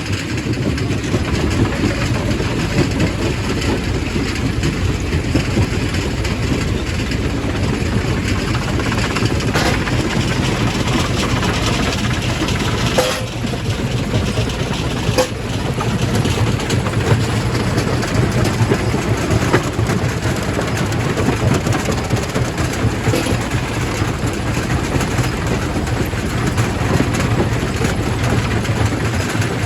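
Quarry primary rock crusher running with a steady, heavy low rumble. A couple of sharp knocks about halfway through, as rock strikes inside the crusher.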